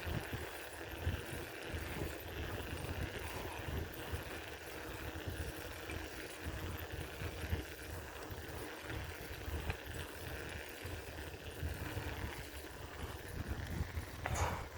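Riding a bicycle: wind gusting on the microphone over the steady rattle and road noise of the moving bike. A brief sharp noise near the end.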